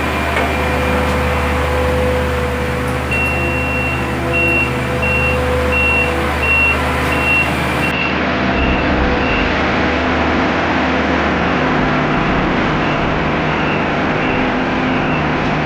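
Heavy paving machinery engines running steadily, with a vehicle's reversing alarm beeping about twice a second, starting about three seconds in and stopping some six seconds later.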